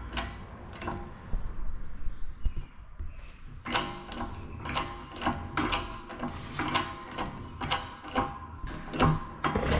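Jack on a shop press being pumped as it presses a new tapered roller bearing onto a differential pinion gear shaft. It gives regular sharp clicks, about two to three a second, starting a few seconds in.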